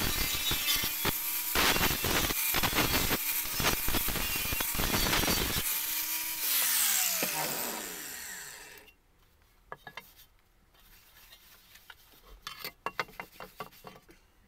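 Angle grinder with an abrasive disc grinding rust off a steel shovel blade: a loud, rough grinding over the motor's steady whine. About six seconds in it is switched off and the whine falls away as the disc spins down, followed by light knocks and clinks as the shovel and grinder are handled.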